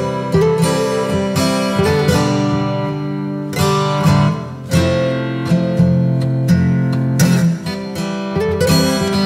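Background music: acoustic guitar strummed and picked in changing chords.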